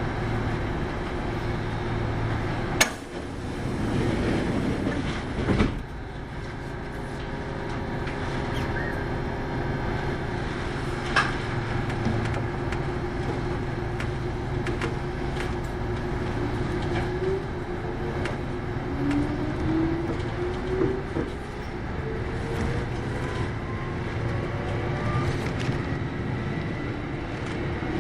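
Kintetsu 8810-series electric train running, heard from inside the car: a steady rumble of wheels on rail with a few sharp knocks. Over the second half a whine climbs steadily in pitch as the train gathers speed.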